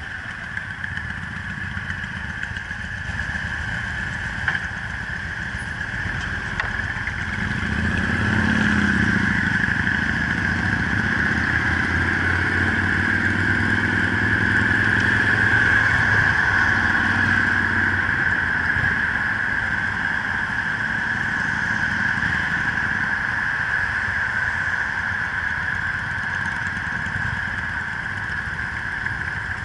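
Motorcycle engine running under way, with a steady high-pitched whine throughout. About eight seconds in the engine note rises as the bike pulls away and accelerates, then it settles back to a steadier cruise by about eighteen seconds.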